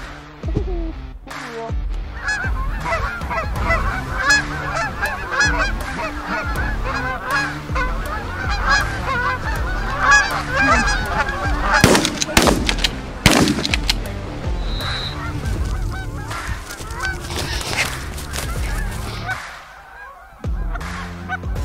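A flock of Canada geese honking overhead, many calls overlapping. About twelve seconds in, two loud sudden bangs a second and a half apart cut through the calling, and the honking thins out near the end.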